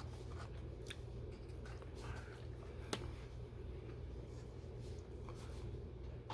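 Light handling noises and a few small clicks as the electric alarm clock's power cord is plugged into an outlet, the sharpest click about three seconds in, over a faint steady low hum.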